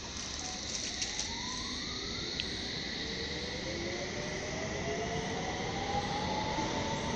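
Electric train's traction motors whining as it accelerates, several tones gliding slowly upward from about two seconds in and growing gradually louder.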